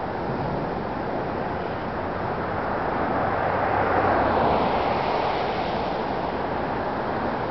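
Steady road-traffic noise with a car passing by, growing louder to a peak about halfway through and then fading.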